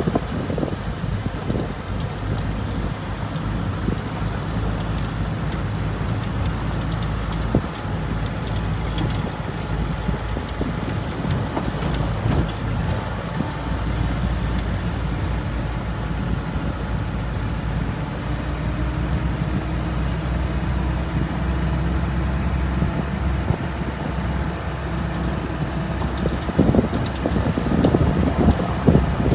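Vehicle engine running steadily at cruising speed on a gravel road, with wind rumble on the microphone, rougher and louder near the end.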